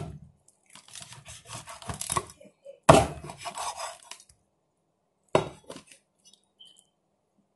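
Meat cleaver chopping through a raw whole chicken onto a wooden cutting board: two sharp strikes, about three seconds and five and a half seconds in, the first the louder, with scraping and handling of the meat before them.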